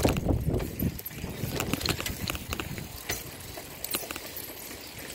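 Bicycle rolling over tarmac, with scattered rattling and clicking from the moving bike. Wind buffets the microphone in the first second.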